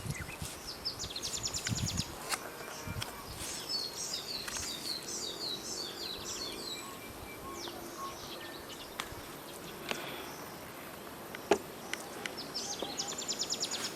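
Forest ambience: birds chirping, with rapid high trills near the start and again near the end and a burst of several chirping calls in the middle, over a faint steady hiss. A few sharp clicks or knocks cut through, the loudest a little over three-quarters of the way in.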